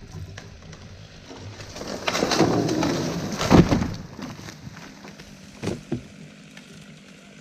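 Dead tree breaking and falling: a rush of cracking and splintering wood that ends in a heavy crash about three and a half seconds in, followed by two short thumps a couple of seconds later.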